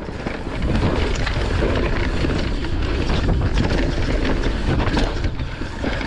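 Wind buffeting the chest-mounted microphone as an e-mountain bike rides fast down a dirt forest trail, over tyre noise on the dirt and a steady run of small clicks and knocks from the bike rattling over the rough ground.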